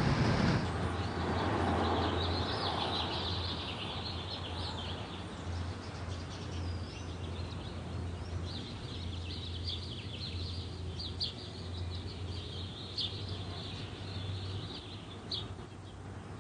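Rain noise dies away in the first second or two, giving way to small birds chirping steadily, many short calls, over a low steady hum.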